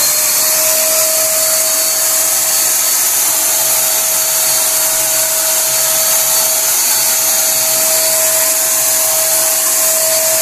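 Buildskill Basics BPS2190 electric paint sprayer running steadily while spraying water at a wall: a loud airy hiss with a constant high whine from its motor.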